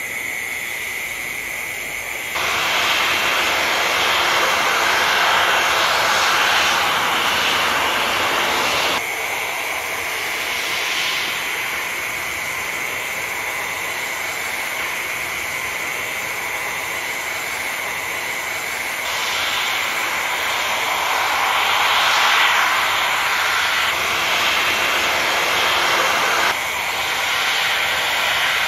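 Boeing 737's jet engines running at taxi power: a steady hiss with a high whine through it. The loudness jumps up and down in sudden steps.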